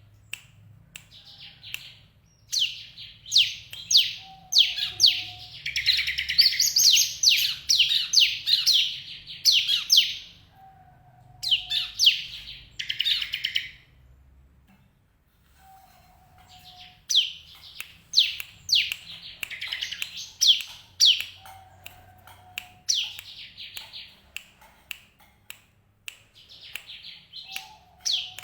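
Bar-winged prinia (ciblek) calling: rapid series of sharp, high chirps in bursts of a few seconds with short pauses between them.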